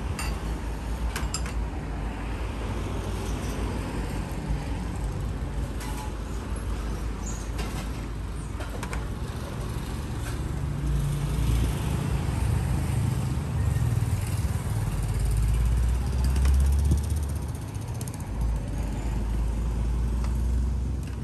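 Road traffic passing, a low rumble that swells in the second half, with a few scattered light clicks.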